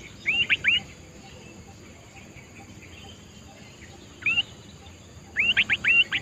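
Sooty-headed bulbul calling in short, rising, hooked whistled notes: three in quick succession at the start, a single note about four seconds in, and a rapid run of four near the end. A steady high insect drone runs underneath.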